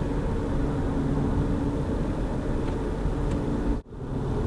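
Steady engine and road noise of a moving car heard from inside the cabin, with a low steady hum. It cuts out abruptly for a fraction of a second near the end, then resumes.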